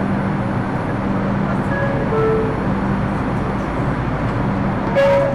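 New York City subway car's door-closing chime, a falling two-note ding-dong, about two seconds in and again, louder, near the end, signalling the doors are closing. Under it runs the steady hum and rumble of the car.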